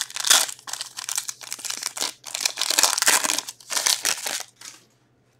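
Foil wrapper of an Upper Deck Allure hockey card pack being torn open and crinkled by hand: a run of crackly crinkles and rips that stops shortly before the end.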